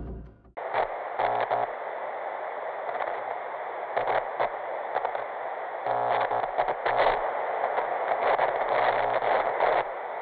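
Hiss and crackle of analogue TV static, with irregular crackles and a low buzz that comes and goes. The background music fades out about half a second in, just before the static starts.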